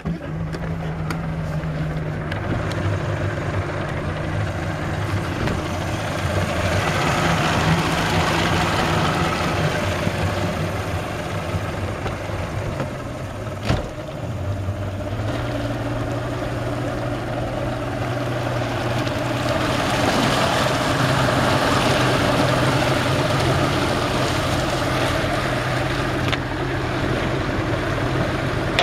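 Freshly remanufactured Mercury 135 hp V6 two-stroke outboard running the boat under way during break-in, over the rush of water and wind. The engine note shifts pitch about halfway through, just after a single sharp knock, and the sound grows louder in stretches.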